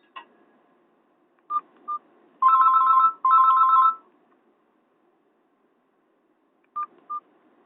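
Nokia phone ringtone imitating a telephone's double ring, played through the phone's speaker. Two short beeps come first, then two bursts of a rapidly warbling two-tone ring. After a pause, the two beeps come again near the end.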